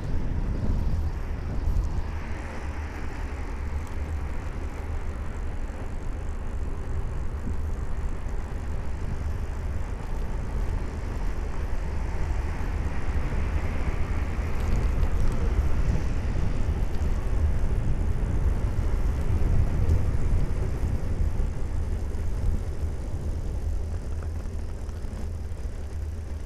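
Wind noise on the microphone of a camera on a moving bicycle, a steady low rumble, with the noise of road traffic around it.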